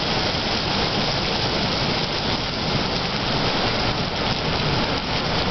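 Thunderstorm rain pouring steadily onto a wet parking lot, an even hiss with no letup.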